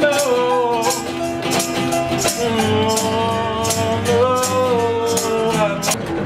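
Live acoustic band: a singer holding long, drawn-out notes that slide between pitches, over acoustic guitar chords and a steady tambourine beat.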